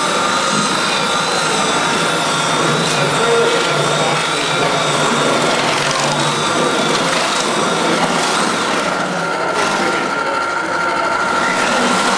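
Steady whir of a small motor with a constant high-pitched whine, running without a break.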